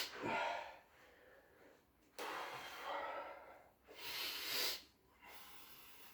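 A man breathing close to the microphone: a few short, hissing breaths or sniffs, each under a second, with pauses between them.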